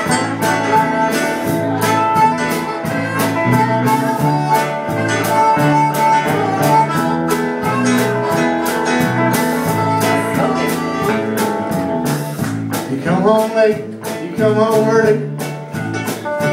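Live acoustic band playing an instrumental passage of a country-bluegrass song: strummed and picked guitar over a steady beat.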